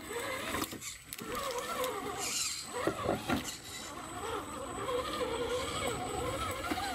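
Redcat Gen8 Scout II RC crawler's electric motor and geared drivetrain whining as it crawls over creek rocks, the pitch rising and falling with the throttle.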